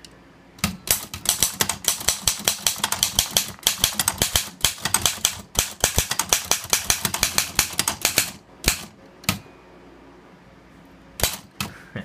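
Remington Monarch manual portable typewriter being typed on quickly: a rapid run of sharp key strikes, several a second, for about eight seconds, then a few single strikes, a pause, and two more strikes near the end.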